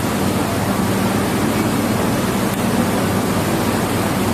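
Steady loud hiss-like background noise with a low hum underneath, no distinct events.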